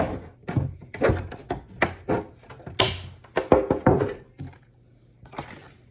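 Shears snipping through a plastic armour part: a run of sharp, irregular cuts and clicks for about four seconds, then a lull with one short scrape near the end.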